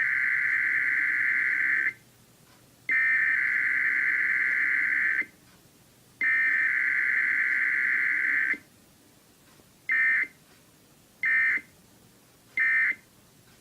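Emergency Alert System data tones broadcast over the radio: three long bursts of digital data tone, each a little over two seconds, make up the test's header. About ten seconds in come three short bursts, the end-of-message code that closes the alert.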